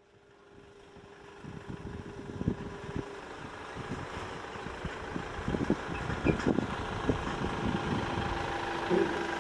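Mitsubishi Fuso Canter light truck's diesel engine running as the truck drives slowly toward the microphone, growing louder as it approaches, with irregular low rumbling throughout.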